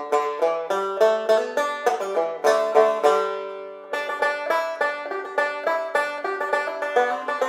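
Background music: a quick plucked-string tune, each note struck sharply and dying away.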